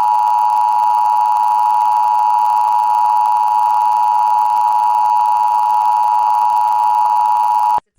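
Emergency Alert System two-tone attention signal: 853 Hz and 960 Hz sounded together as one loud, steady tone. It runs about eight seconds and cuts off abruptly just before the end, marking the start of a Required Monthly Test.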